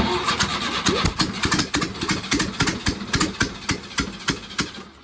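Air-cooled VW flat-four engine catching on the starter and running loud and uneven with no exhaust fitted, then dying away near the end.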